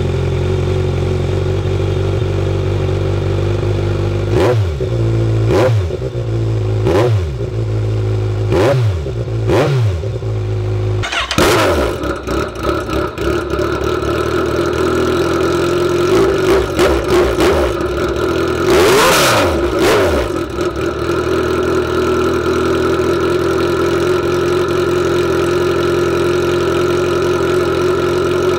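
Very loud 2010 Kawasaki Z1000 inline-four exhaust through Vance & Hines Urban Brawler slip-on mufflers with no silencer inserts, idling on the stock headers with about five quick throttle blips. About 11 seconds in it cuts to the same bike on Black Widow race headers, nearly straight pipes, idling with a few short blips and one bigger rev near the middle; the owner says it doesn't run that great, probably from zero back pressure.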